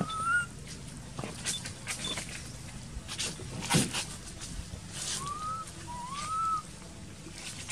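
Infant long-tailed macaque crying with thin, high whimpering coos, each a short note that rises and then falls, given three times: once at the start and twice in quick succession about two-thirds of the way through. Scattered clicks and rustles run underneath, with a louder sharp knock near the middle.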